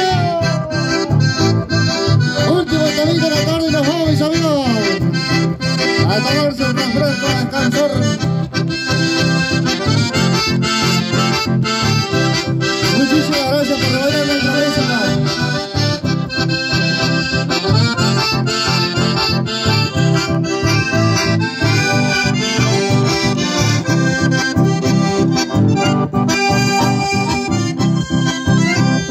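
Accordion-led dance music with a steady, regular beat.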